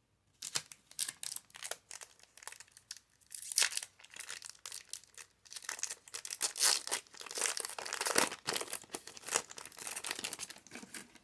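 Foil wrapper of a Pokémon trading card booster pack being torn open and crinkled by hand, a dense run of irregular sharp crackles and rips.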